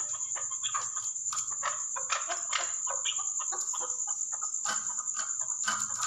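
Chukar partridge calling in a quick run of short, sharp clucking notes, several a second. A steady high-pitched whine runs underneath.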